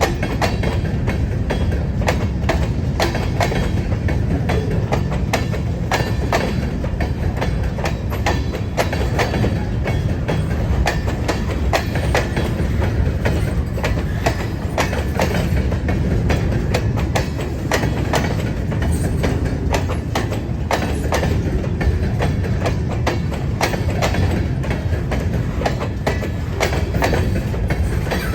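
Train cars rolling past at close range: a steady low rumble of wheels on rails with continual irregular clicking and clacking as the wheels cross rail joints.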